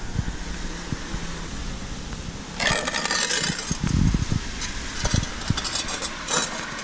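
A loose outdoor floor tile lifted by hand off its concrete slab, grating and scraping against the bare adhesive bed in a burst about two and a half seconds in, then a few shorter scrapes and knocks. The tile comes away freely because it was bonded over only about a third of its surface. Wind rumbles on the microphone underneath.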